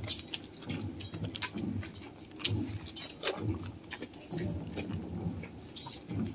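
A metal thurible swung on its chains to cense the statue, its chains and censer clinking and jingling repeatedly over a low background murmur.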